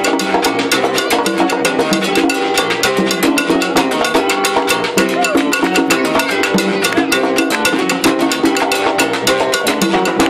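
Live salsa band playing. Congas, timbales and a scraped güiro keep a dense, steady rhythm under electric bass, keyboard and horns.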